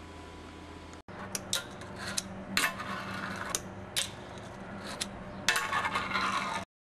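Fingerboard ridden on a glass tabletop: rolling with sharp clacks of the board popping and landing, starting about a second in. Near the end comes a longer rough scrape, then the sound cuts off.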